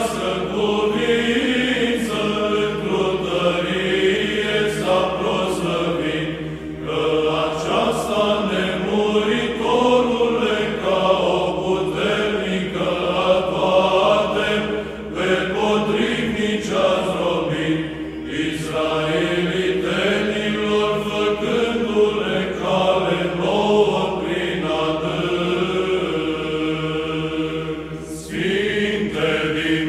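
Orthodox church chant sung by voices in long, continuous melodic phrases, with short breaks between phrases.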